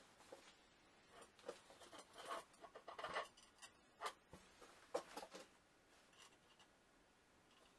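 Faint, scattered clicks, taps and scrapes of a wrench working the threaded-rod clamps on an oak board glue-up, bunched in the middle few seconds.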